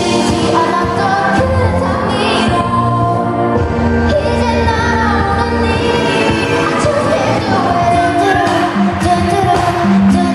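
Pop music playing, with a sung vocal over steady bass notes and a backing track.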